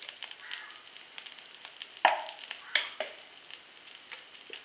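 Hot oil sizzling in a kadai with a tempering of mustard seeds, urad dal, curry leaves, ginger-garlic paste and freshly added turmeric and red chilli powder, with scattered crackles and a few sharp clicks, the loudest about two seconds in.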